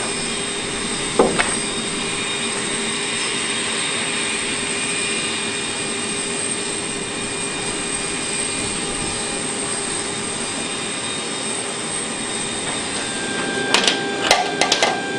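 Steady whine and rush of aircraft turbine machinery on the flight line, several unchanging tones over a hiss. A single knock comes about a second in, and a few sharp metallic clanks near the end.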